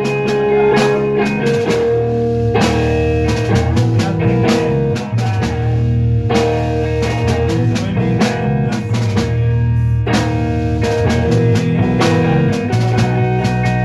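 Rock music: guitar over a steady drum-kit beat.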